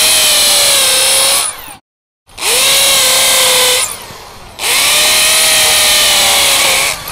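Master 13 mm hammer drill in hammer mode boring into a concrete block with stone-chip aggregate, in three runs of about two seconds each; at each start the motor whine rises and then holds steady. A brief dead silence comes about two seconds in.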